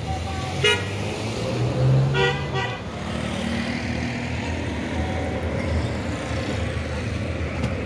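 Street traffic: a steady rumble of passing vehicles with short car-horn toots, one just under a second in and two quick ones a couple of seconds in.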